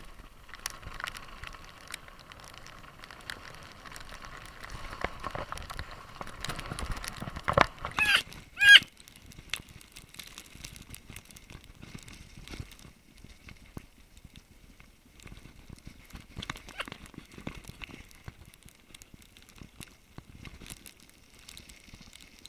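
Mountain bike descending a rough, wet trail: the bike rattles and clatters over bumps and stones, tyres crunching on gravel and mud. It gets rougher and louder towards the middle, with two short, loud squeals about eight seconds in.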